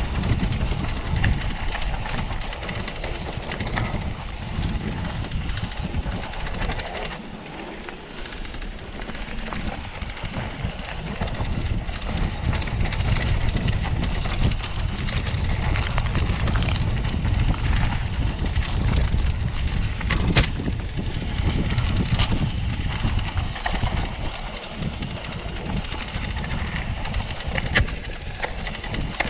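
Mountain bike rolling along a dirt trail: continuous tyre and frame rattle with a heavy low rumble, and two sharp knocks about two-thirds of the way through.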